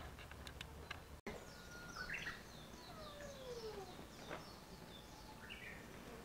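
Small birds chirping outdoors: a run of short, high, falling chirps repeated over several seconds, with a few longer sliding calls. A few faint clicks come in the first second before an abrupt cut.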